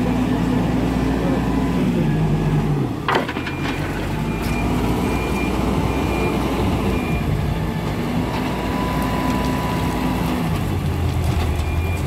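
Hidromek 102B backhoe loader's diesel engine running, its revs dropping about two seconds in, with a sharp knock just after. Its reversing alarm then beeps steadily for about four seconds, and the engine picks up again near the end.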